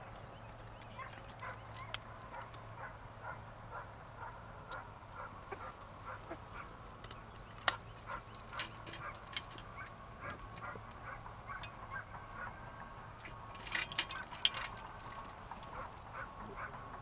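Live ducks quacking in a steady series of short calls, several a second. A few sharp clicks and knocks come about eight seconds in and again near fourteen seconds.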